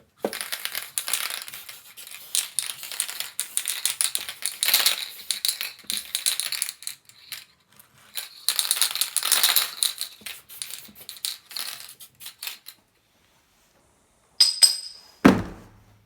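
Hand work on metal vise parts: dense, irregular scraping and clicking for about twelve seconds. After a pause comes a short metallic ring, then a single loud knock.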